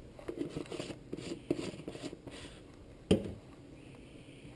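Paprika being shaken from a spice shaker into a metal bowl of flour: a run of quick shakes, then a single knock about three seconds in.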